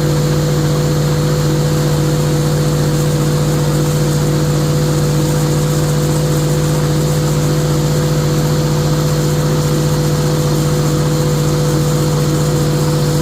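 Pile-driving machinery for steel H piles running steadily: a loud, continuous mechanical drone with a strong steady hum and a fast fine pulsing, without separate hammer blows.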